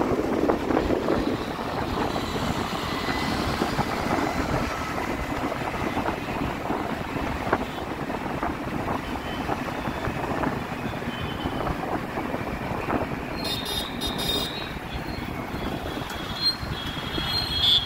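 Wind rushing over the microphone and road noise from riding on a two-wheeler along a city road, with scooter traffic running alongside. Several short high-pitched sounds come in near the end.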